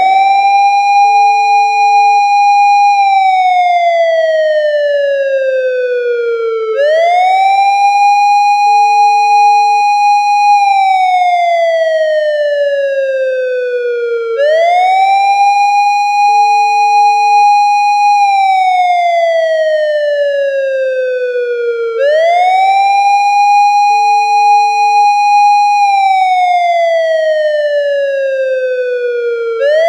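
Japanese police patrol car siren wailing in a slow repeating cycle. Each cycle starts with a quick rising sweep, holds a high note for about two seconds, then slides down over about four seconds, recurring roughly every seven and a half seconds.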